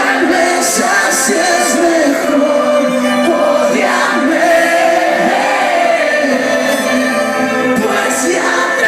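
Acoustic rock band playing live, with many voices singing along in a large hall.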